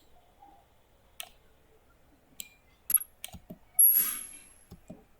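Scattered computer mouse clicks, and about four seconds in a louder short burst of hiss with a thin high whistling tone that fades away over about a second.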